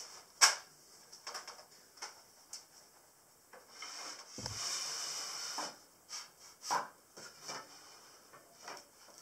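Wooden knocks and clatter from handling a pine bed frame and its slats: one sharp knock about half a second in, a couple of seconds of steady rubbing noise with a dull thump in the middle, then a few lighter knocks.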